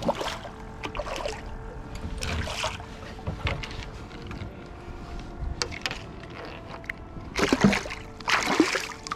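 Water splashing as a hooked redfish thrashes at the surface beside the boat, in short irregular bursts, the two loudest splashes near the end. Faint background music with held notes runs underneath.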